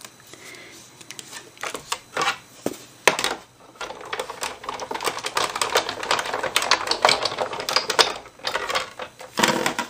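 Manual die-cutting machine being run with a die and cardstock between its plates: a long run of clicks and crackling as the plates pass through the rollers.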